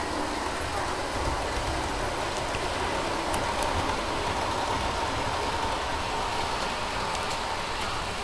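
OO gauge model HST train running along the layout's track: a steady whine with an even rolling noise from the wheels on the rails.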